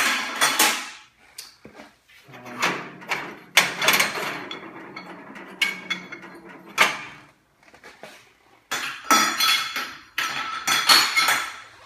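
Black charcoal-look rods being lifted one after another out of a stainless steel yakitori gas grill, clacking against each other and the metal frame in irregular knocks and clatters, about one every second or so.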